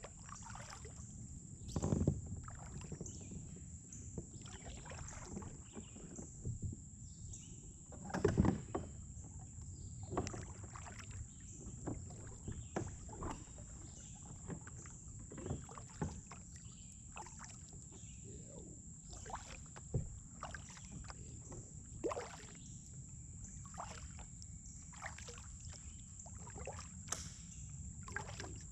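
Kayak paddling: a double-bladed paddle dipping and pulling through the water on alternate sides, making short splashes every second or two over a low steady wash of moving water. Two splashes, about 2 s and 8.5 s in, are louder than the rest.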